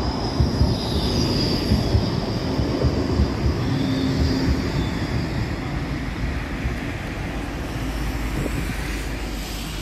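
Modern low-floor electric tram running past close by at low speed. Steel wheels rumble on the rails, with a faint high whine from its electric drive.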